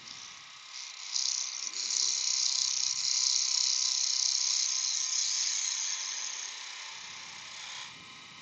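Wood lathe running, with a turning tool hissing as it cuts across the bottom of a spinning spalted beech box from about a second in, fading away near the end.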